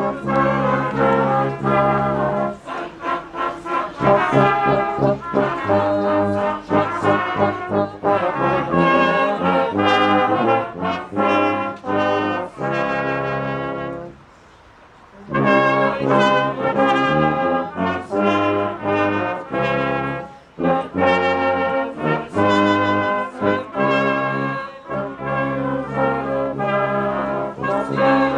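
Brass band playing a Christmas carol in full chords, with a brief break about halfway through before it picks up again.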